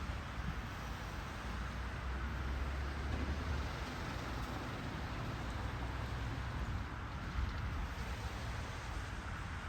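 City street ambience: steady traffic noise with a low rumble of passing vehicles that eases about four seconds in.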